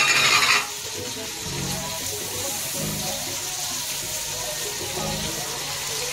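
Sliced onions sizzling in hot oil in an aluminium pot, with a loud burst of sizzle and spatula stirring in the first half-second, then a steady frying hiss.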